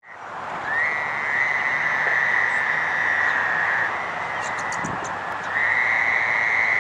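Fowler's toads calling: long, steady trilled calls, each starting with a quick upward slide. Two overlap from about a second in for around three seconds, and a third begins about two-thirds of the way through.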